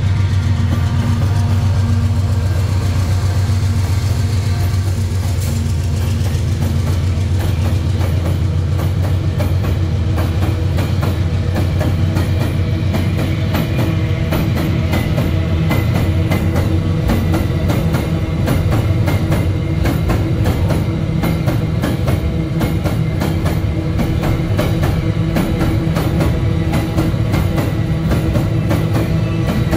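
Diesel-electric freight locomotive running with a steady low drone as a long train of empty iron-ore wagons rolls past, steel wheels clicking rhythmically over the rail joints. The clicking sets in about six seconds in and carries on steadily.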